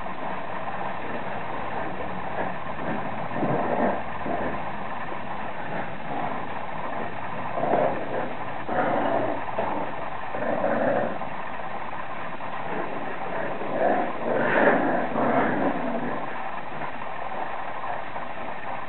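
Bulldog puppies vocalising in short, irregular bursts as they play and tug at a toy, over a steady background noise.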